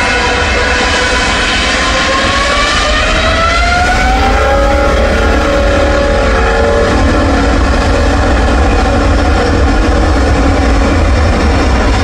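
Airliner's engines running loudly over a deep rumble, their whine rising in pitch about two to four seconds in and then holding steady, as the engines spool up to takeoff power.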